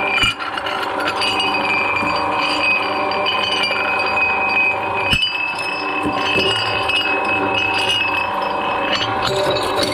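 Green glass wine bottle being crushed between the steel cutters of a twin-shaft shredder: continuous cracking and clinking of breaking glass, with a high ringing held throughout. There is one sharp crack about five seconds in.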